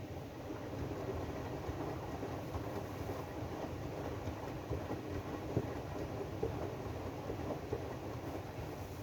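AEG DualSense front-loading washing machine running its drum-clean cycle: a steady rumble from the turning drum and motor, with small irregular knocks, one sharper knock about five and a half seconds in.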